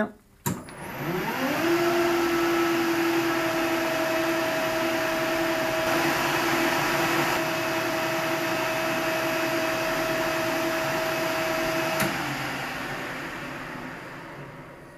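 Metal lathe switched on with a click, its motor whining up in pitch to speed within about a second and then running steadily while turning a spigot down to diameter. It is switched off about twelve seconds in and spins down, fading out.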